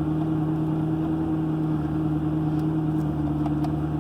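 McLaren MP4-12C's twin-turbo V8 idling steadily, a constant low hum with no change in pitch.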